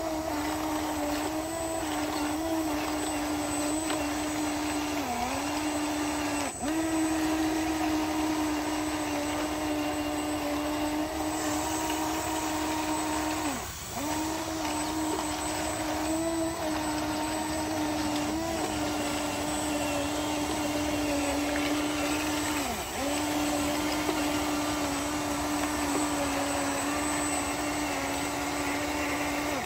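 Electric drive motors and gearbox of a radio-controlled Komatsu bulldozer model whining steadily as it crawls through mud, the whine dipping briefly in pitch and level several times.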